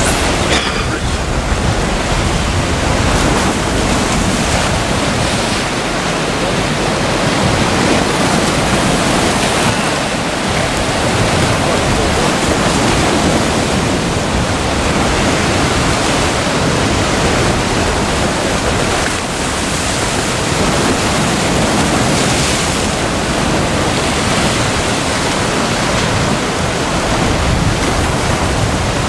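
Sea surf breaking and washing over a rocky shoreline, a steady rush of waves that swells and eases.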